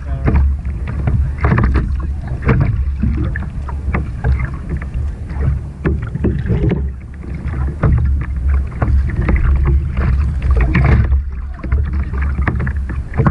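Small waves slapping and sloshing irregularly against a plastic sit-on-top kayak's hull close to the microphone, over a constant low rumble.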